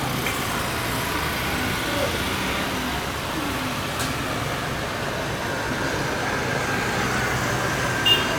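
Steady engine noise with a faint whine running through it. A brief high-pitched beep sounds near the end.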